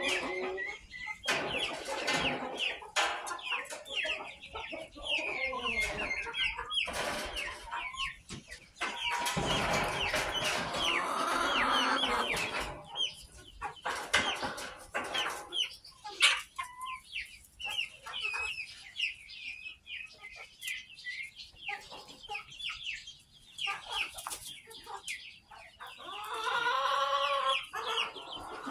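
Several chickens clucking and calling, with many short high-pitched calls repeated throughout and a longer, drawn-out call near the end.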